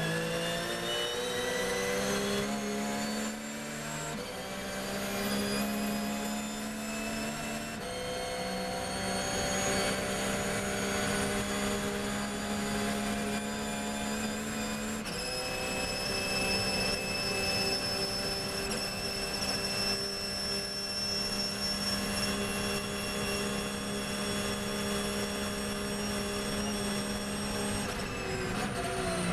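Porsche GT3 R race car's flat-six engine heard from inside the cockpit under full throttle, its pitch climbing through the gears with quick upshifts about 4, 8 and 15 seconds in. It then holds a high, near-steady note flat out in top gear, and the pitch drops near the end as the driver lifts off for braking.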